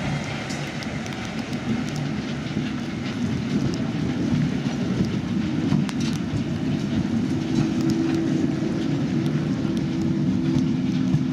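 Slow move of GE AC4400CW diesel locomotives rolling past at close range behind a small switcher. A steady low rumble carries scattered wheel clicks over the rail, and a steady tone joins in partway through.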